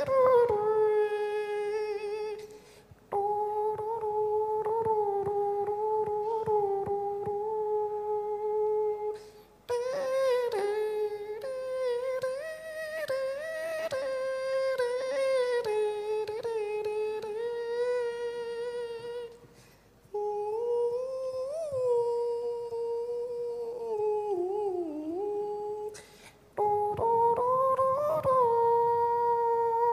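A man imitating the đàn bầu (Vietnamese monochord) with his voice: long hummed notes that bend and slide in pitch, in phrases broken by four short pauses.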